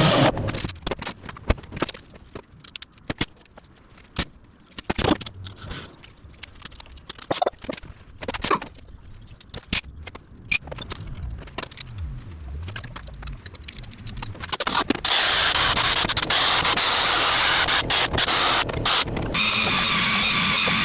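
Scattered scraping and clicking of hand cleaning on a metal turbocharger housing. About fifteen seconds in, a power tool starts and runs steadily with a whining tone as the turbo is worked on.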